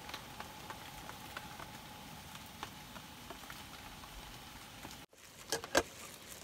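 Light rain pattering with scattered drops over a faint steady hum. Near the end come two loud crinkles of plastic wrap being pulled off a rice ball.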